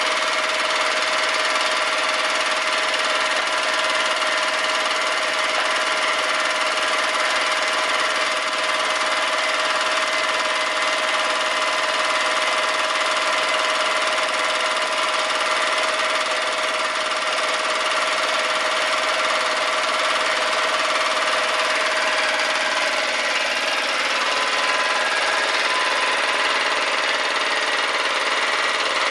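Belt-driven two-cylinder piston air compressor pump, turned at about 1150 rpm by a 1.5 kW three-phase electric motor, running steadily as it pumps up its tank.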